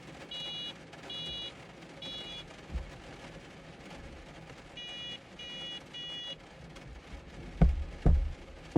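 A small horn beeping: two sets of three short, high-pitched beeps with a pause between the sets, followed near the end by two loud thumps.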